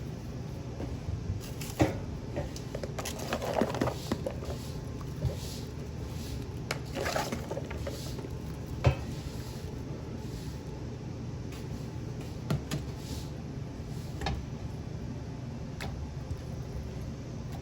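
Kitchen work: pots, dishes and utensils clattering and knocking, with rustling between, over a steady low hum. The sharpest knocks come about two seconds in and about nine seconds in.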